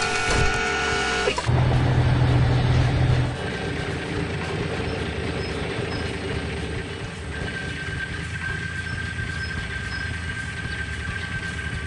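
Heavy vehicle running, a sound effect in an animated cartoon: a steady rumble with a deep hum, loudest for the first few seconds, then quieter and even.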